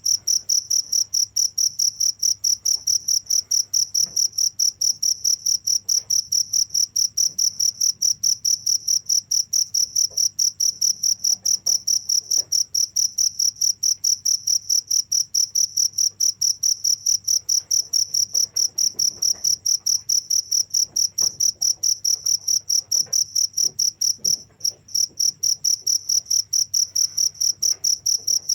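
Cricket chirping in a rapid, even stream of high-pitched pulses, with a brief pause about 24 seconds in.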